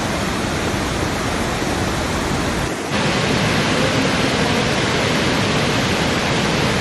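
Waterfall: a steady rush of falling water. Just before three seconds in the sound dips for an instant and comes back slightly louder.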